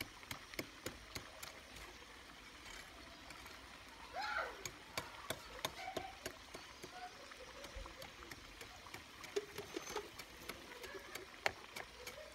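Tomato stew simmering in a frying pan over a gas flame, popping and spattering in irregular small clicks over a faint hiss.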